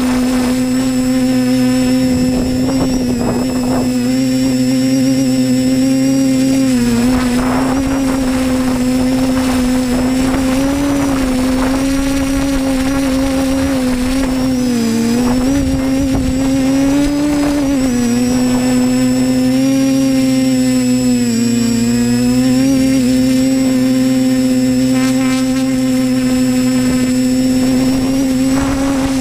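Disco Pro drone's electric motors and propellers buzzing steadily, heard close up from the camera on the airframe. The pitch wavers slightly up and down several times as the throttle changes.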